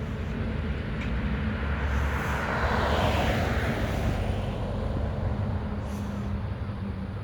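Heavy diesel engine of a Mack garbage truck running steadily, with a rush of noise that swells about two seconds in and fades by about four seconds.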